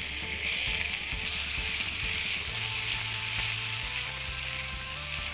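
Chicken breast sizzling in oil and melting butter in a hot frying pan: a steady frying hiss.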